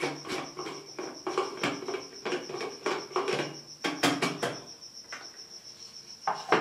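Handling clicks and knocks of a Panasonic MJ-W176P juicer/blender's grinder attachment: the glass jar is lifted off the base and its plastic blade-lid is twisted off. The clicks are irregular, bunched over the first four and a half seconds, with one more near the end.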